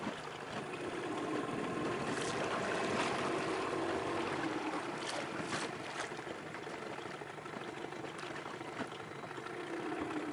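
Steady sound of a small boat on open water, with water lapping and trickling at the hull and a low hum running under it. A few short sharp clicks come through in the middle.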